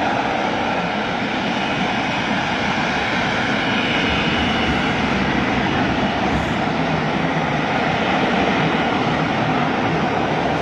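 F-35B fighter's jet engine running, a loud, steady rushing noise with no let-up.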